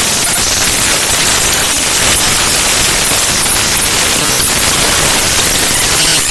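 Raw binary data of the hb.dll library file (HandBrake) played directly as audio: a loud, steady hiss of dense static across all pitches.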